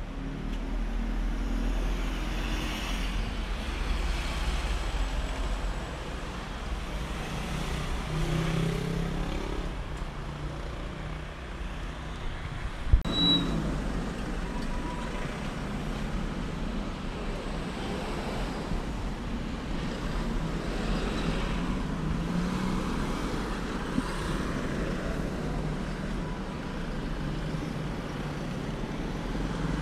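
City street traffic: passing vehicles' engines and tyres in a steady wash of noise, with one sharp knock about halfway through.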